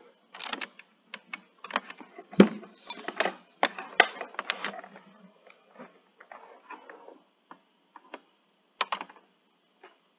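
Irregular clicks and taps of a computer mouse and keyboard, dense and rapid for the first five seconds, then sparser with a short cluster near the end. One louder knock about two and a half seconds in.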